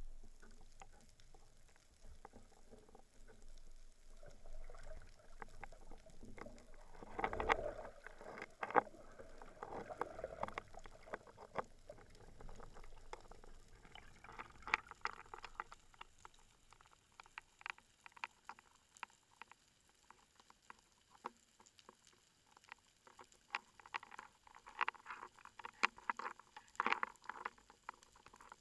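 Underwater ambience heard through a camera housing: a crackle of small, sharp clicks that grows denser in the second half, with a louder rush of water noise and a couple of knocks about seven to nine seconds in.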